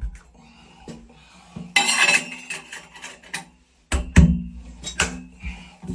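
Metallic clinks and knocks as the handrail's mounting cover is snapped back on and handled: a rattling cluster about two seconds in, then two sharper knocks near the end.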